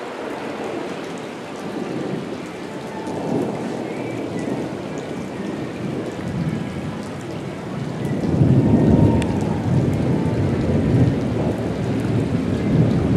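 Thunder rumbling over steady rain on wet pavement. The rumble grows louder and heavier about two-thirds of the way in.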